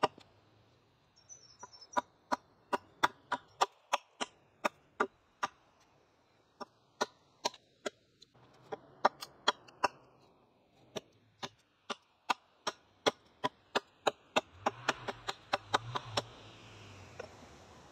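A blade chopping bark off an upright green-wood pole: a long run of sharp wooden chops, about two to three a second, with a few short pauses.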